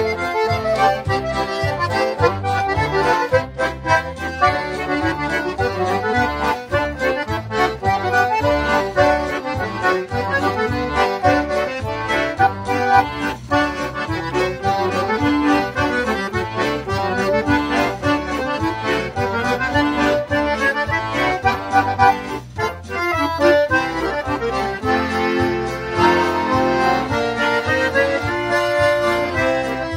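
Two Chemnitzer concertinas playing a tune together in duet, the reeds sounding full chords over a regular alternating bass.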